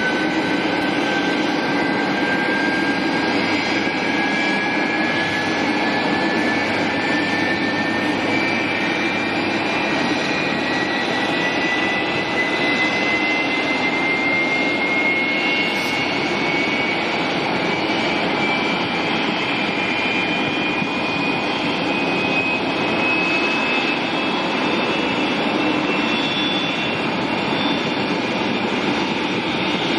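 Boeing 747-400 freighter's jet engines running steadily, with a high whine rising slowly in pitch throughout.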